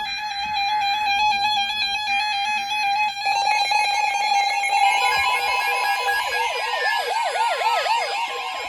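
Weather radio alert alarm sounding for an incoming severe thunderstorm warning. A steady electronic tone is joined about three seconds in by a fast, warbling siren-like alarm, and a falling whistle-like glide comes partway through.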